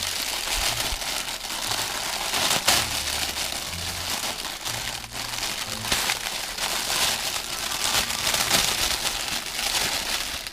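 Packaging crinkling and rustling continuously as it is handled and opened, with irregular crackles and a sharper crinkle a little under three seconds in.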